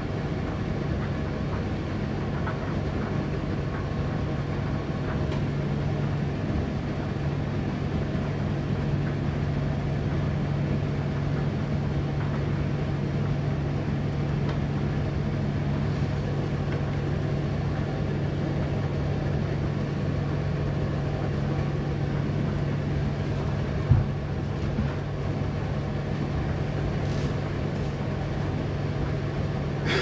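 Indesit IDC8T3 condenser tumble dryer running: a steady low motor hum with the whir of the turning drum and fan, broken once by a single brief knock about three-quarters of the way through.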